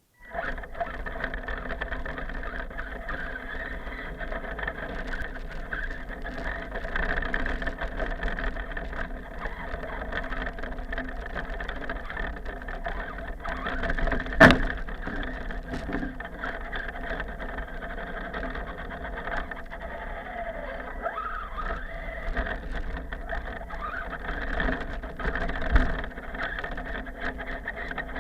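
Radio-controlled car's motor whining steadily, its pitch sliding up and down a few times in the second half. A sharp click about halfway through and a low thump near the end.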